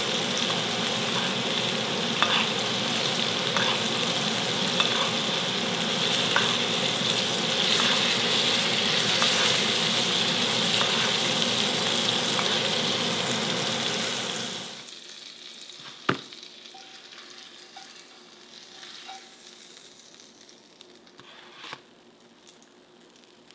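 King salmon fillets sizzling in butter in a frying pan, a steady sizzle with light clicks of a spoon basting them against the pan. About two-thirds of the way through, the sizzle stops abruptly, and a couple of single light clinks follow.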